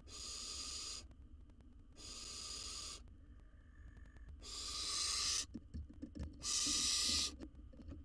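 Barn owl hissing screech calls: four long, harsh hisses about two seconds apart, the last two louder.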